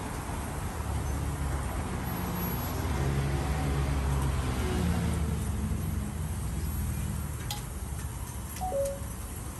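Motor vehicle passing on the street: its engine hum swells over a few seconds, then fades. A few light clinks come near the end.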